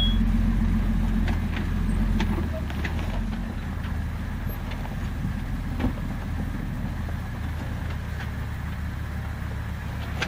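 Jeep engine running at crawling speed while it tows a small off-road trailer over a rocky dirt track, with scattered clicks of stones under the tyres. The low rumble is loudest for the first couple of seconds, then drops off as the vehicle pulls away.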